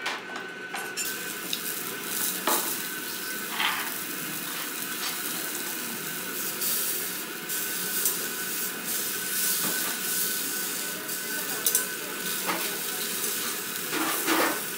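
Rolls of beef tongue bound with green onion sizzling steadily on a yakiniku mesh grill as the fat renders out, with a few light clicks.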